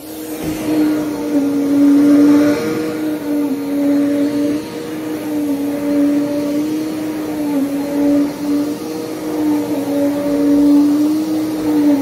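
Upright vacuum cleaner running steadily on thick carpet, its motor hum dipping slightly in pitch and swelling and falling in loudness as the head is pushed back and forth.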